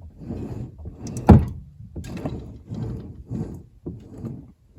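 A series of soft mechanical knocks and rubbing, about two a second, with one sharp, loud knock about a second in.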